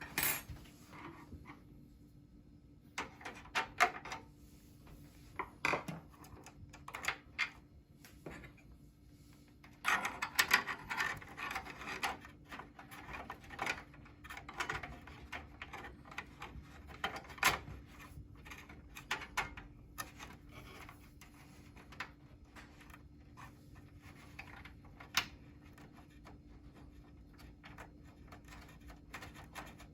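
Irregular clicks, taps and rubbing as computer hardware is handled during a graphics card installation, with a longer stretch of scraping about ten to twelve seconds in.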